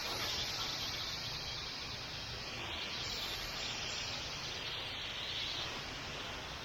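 Steady hiss of water spraying from a soft-wash hose nozzle onto the walls and doors to cool them down, easing off briefly about two and a half seconds in, over a low rumble.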